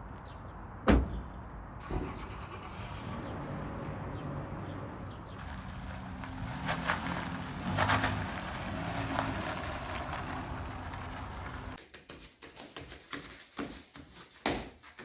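A car's engine running, with a sharp thump about a second in and louder swells around seven and eight seconds. Near the end it cuts to a string of separate light taps and knocks.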